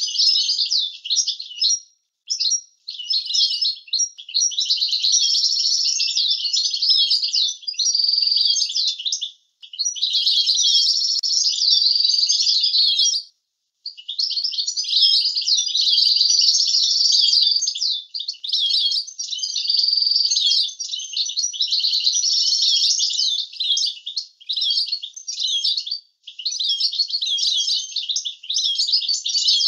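European goldfinch singing a rapid, twittering song of trills and chattered notes mixed with a few held whistles. It sings in long bouts of several seconds, broken by a few brief pauses.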